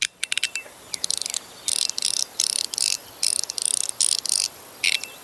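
Magnetic fidget slider (Fidgetboy Stix) being flicked back and forth, its magnets snapping the pieces into their click positions in quick runs of sharp, high clicks.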